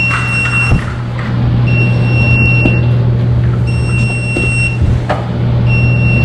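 A laundry machine's electronic beep repeating, about one second on and one off, over a steady low hum of machines running. Beneath it are faint rustles and light knocks of damp laundry being pulled out of a front-load washer into a wire cart.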